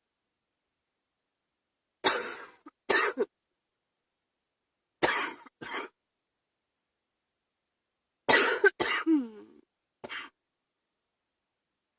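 A person coughing with a chest cold: short harsh coughs coming in pairs with pauses between, then a last single cough near the end. The third bout trails off into a brief falling voiced sound.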